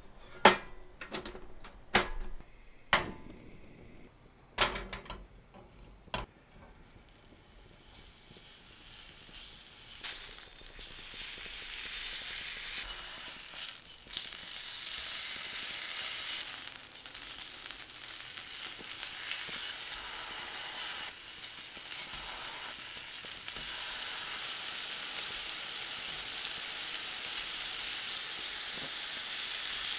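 A few sharp knocks and taps of kitchen utensils, then food sizzling in a hot frying pan, the sizzle swelling up over a few seconds and running on steadily with an occasional knock.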